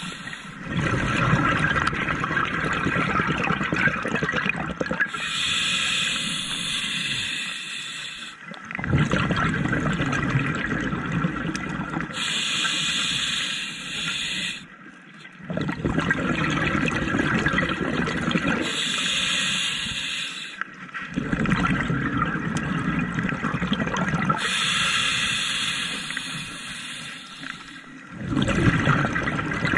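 Scuba diver breathing through a regulator underwater: four hissing inhalations about every six to seven seconds, each followed by a longer rush of exhaled bubbles.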